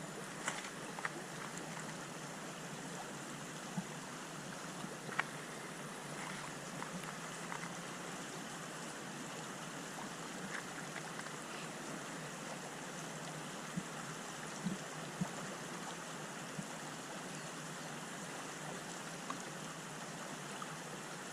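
River water flowing steadily over rocks, with a few light clicks and knocks scattered through it.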